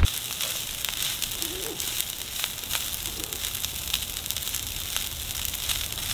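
Wood fire crackling, with frequent small irregular pops over a steady hiss.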